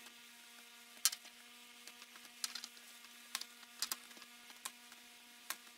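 Sharp plastic clicks and taps, about seven at irregular intervals, as a pry tool works around a 2013 Nexus 7's plastic back case and its clips snap loose. A faint steady hum runs underneath.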